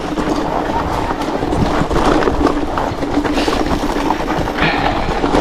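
Mountain bike rolling over a rocky trail: tyres crunching on loose stones, with a continuous clatter of short knocks from the chain and frame as the bike jolts.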